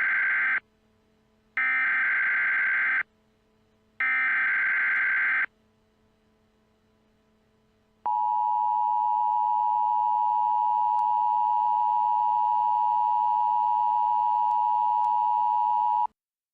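Emergency Alert System tones. First comes the tail of one SAME header data burst and two more full bursts, each about a second and a half. After a pause of about two and a half seconds, the two-tone EAS attention signal sounds: a steady pair of tones held for about eight seconds that cuts off suddenly.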